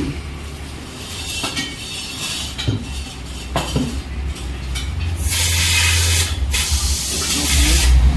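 Compressed air hissing in two loud bursts of a little over a second each, starting about five seconds in, over a low rumble, with a few light clicks before them.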